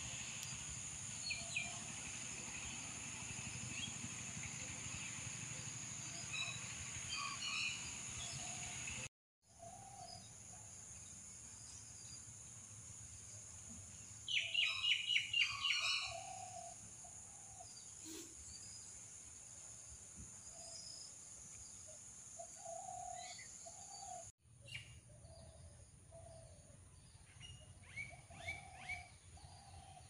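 Birds calling outdoors: scattered chirps and short low calls over a steady high-pitched whine, with a fast run of loud chirps about halfway through. The sound cuts out briefly twice.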